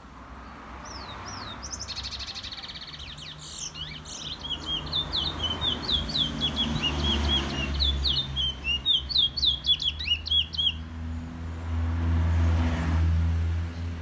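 A caged black songbird singing a fast, varied run of chirps and short whistled notes, opening with a buzzy rapid trill and stopping about eleven seconds in. A low rumble swells underneath over the last few seconds.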